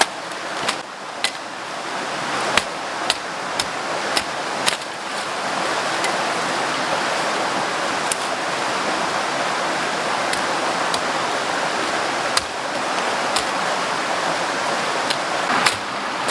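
River water rushing steadily, with a dozen or so sharp knocks or clicks spread irregularly through it.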